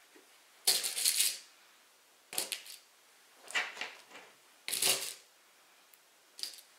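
Cotton fabric rustling and crinkling as it is folded into pleats and pinned by hand, in about five short bursts with light clicking of pins being handled.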